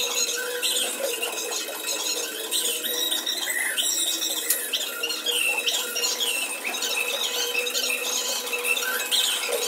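Metalworking workshop noise: a steady machine hum with many short, high-pitched squeals scattered throughout.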